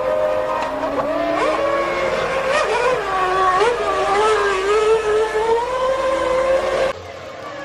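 Formula One V10 engine revving, its pitch climbing in several steps and then holding a steady high note. The sound drops away suddenly near the end.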